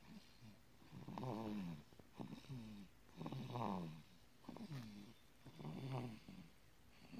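A sleeping five-and-a-half-month-old baby snoring, about one snore a second, each one dropping in pitch.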